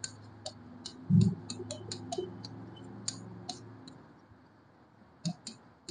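Marker tip tapping and clicking on a writing board as letters are written: a quick string of light ticks over the first three or four seconds, then two more near the end, with a soft low thump about a second in.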